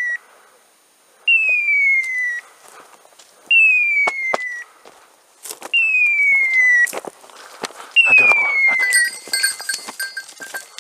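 Electronic beeper collar on a hunting dog sounding a falling, hawk-like screech about a second long, repeated every two seconds or so, the signal of a dog standing on point. Sharp clicks of feet on loose stones sound between the calls.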